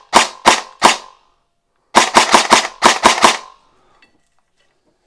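Magpul Masada airsoft electric rifle on a 7.4 V battery, test-fired and really quiet: three single shots about a third of a second apart, a pause of about a second, then a quicker string of about seven shots.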